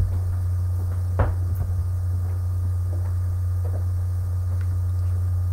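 A steady low hum, with a single sharp knock about a second in.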